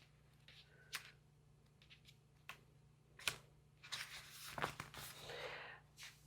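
Faint handling of oracle cards: a few separate clicks and taps, then denser rustling and flicking of cards in the last couple of seconds, over a low steady hum.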